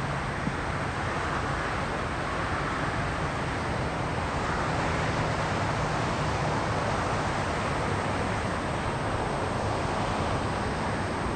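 Steady rushing outdoor background noise, even throughout, with no distinct events.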